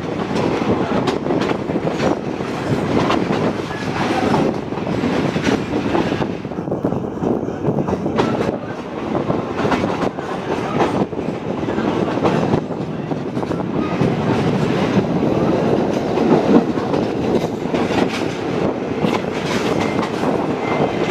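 Passenger train running on the rails: a steady rumble and rattle of the coach with the wheels clacking over the rail joints, heard through an open coach window.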